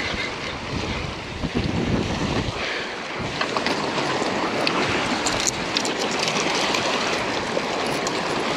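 Wind buffeting the microphone over waves washing against the rocks of a jetty, a steady rushing noise.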